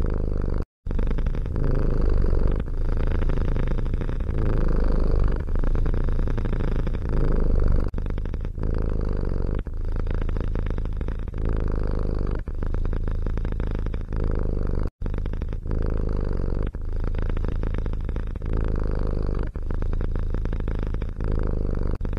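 A domestic cat purring loudly and steadily, with a short dip in the sound every second or so. The sound cuts out briefly twice, once near the start and once about two-thirds of the way through.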